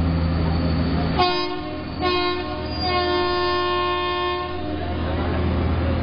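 Horn of a Vadodara-shed WAP-4 electric locomotive sounding a short blast about a second in, then a longer blast of nearly three seconds. It is heard from a coach of the moving train, over the train's steady running rumble.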